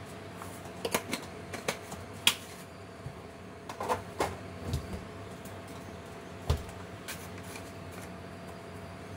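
Kitchen clatter: irregular clicks and knocks of utensils and dishes being handled, with a couple of duller thumps, over a steady low hum.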